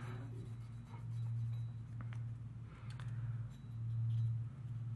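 Cotton-tipped swab scrubbing inside the steel slide of a field-stripped Sig P220 around the extractor: light scratchy rubbing in a few passes, with a couple of faint clicks of metal handling, over a steady low hum.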